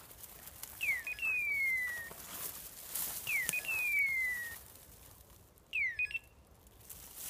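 Hunting dog's electronic beeper collar sounding its call three times, about every two and a half seconds: a short upward chirp and a blip, then a long falling whistle. The last call is cut short. This is the steady repeating signal such a collar gives while the dog is stopped on point. Rustling of brush sounds between the calls.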